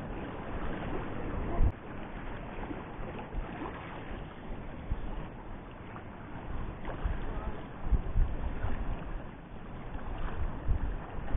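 Wind buffeting the microphone over the sea, with waves washing against shore rocks: a steady rushing noise with gusty low rumbles, and one sharp knock about one and a half seconds in.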